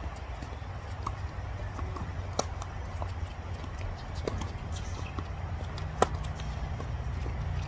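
Tennis ball struck and bouncing on a hard court: a few sharp knocks, the loudest about six seconds in, over a steady low rumble.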